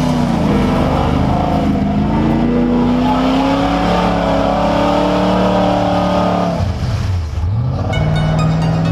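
Mud truck's engine revving hard as it claws through a deep mud pit, the pitch climbing and falling with the throttle. Near the end the revs drop away sharply, then pick up again.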